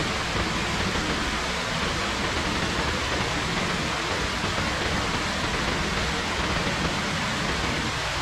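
Steady rain falling, a constant even hiss with no distinct drops or other events standing out.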